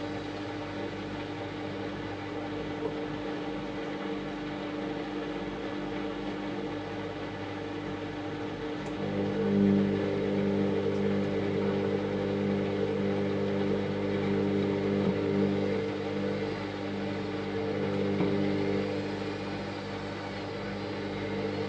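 Washing machine running with a steady motor hum and whir. About nine seconds in it grows louder, with stronger humming tones that swell and ease a few times.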